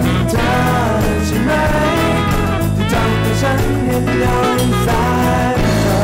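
Background music with a steady beat, bass and a melody line.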